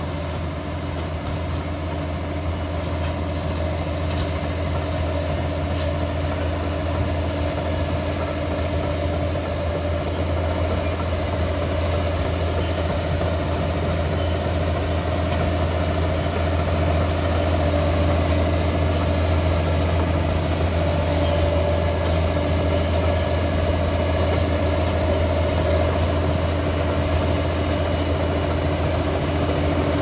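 Liebherr 746 crawler dozer's diesel engine running steadily, a deep even drone that grows a little louder about halfway through.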